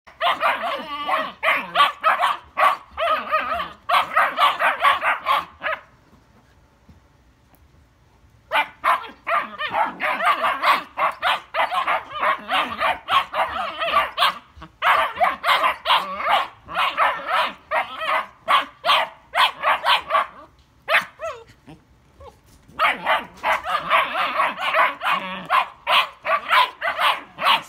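German Shepherd puppies barking at each other in rapid strings of yappy barks while play-fighting. The barking breaks off twice, about six seconds in and again about twenty-one seconds in.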